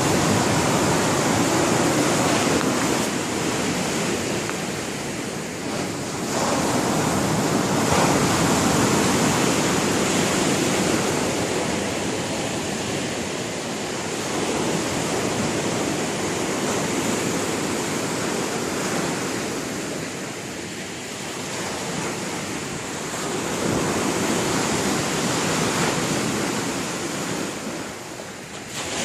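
Sea waves breaking on the shore: a continuous rush of surf that swells and eases every several seconds.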